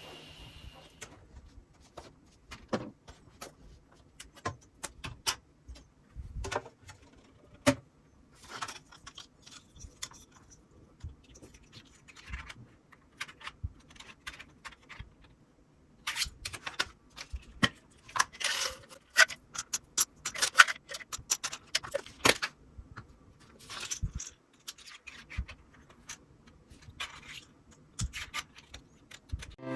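Irregular clicks, taps and light rattles of hard plastic being handled, the 3D-printed PLA pill box and its cover, sparse at first and busiest a little past halfway through.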